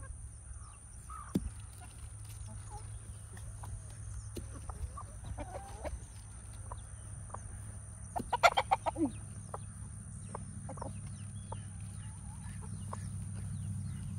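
Chickens clucking softly as they feed, with a burst of about half a dozen loud, rapid clucks a little past the middle.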